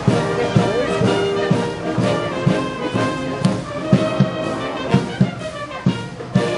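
Military brass band playing a march, with brass chords over a steady bass drum beat of about two strokes a second.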